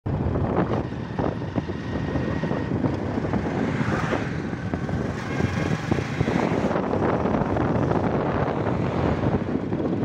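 Traffic noise on a highway mixed with wind buffeting the microphone: a loud, steady rush with irregular gusty thumps.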